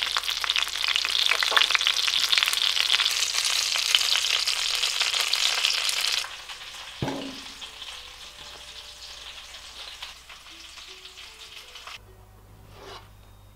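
Panko-breaded chicken breasts frying in hot oil: a loud, dense crackling sizzle that cuts off suddenly about six seconds in. After it, a much quieter stretch of thick sauce simmering as it is whisked in a saucepan, with a single knock about a second later.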